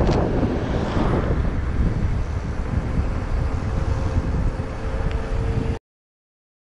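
Wind buffeting the microphone of a camera on a moving bicycle, a steady low rumble, with a car passing in the first second or so. The sound cuts off abruptly near the end.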